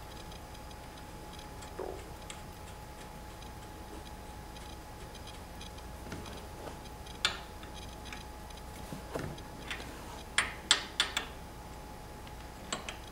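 Irregular metal clicks and taps of a 15 mm wrench on the rear-axle acorn nuts of a StreetStrider elliptical bike as they are tightened to tension the chain, with a quick cluster of sharper clicks about ten to eleven seconds in.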